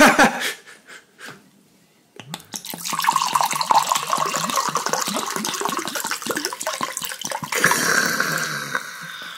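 Alcohol glugging out of a bottle as it is poured into a container, continuous for about seven seconds, the sound growing higher and brighter near the end.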